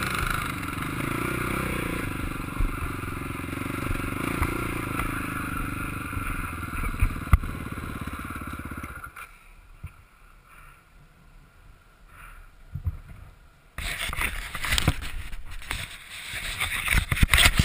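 Sport quad (ATV) engine running at low revs as the quad slows, then shutting off about nine seconds in. After a few quiet seconds come close knocks, clicks and rustling right at the microphone.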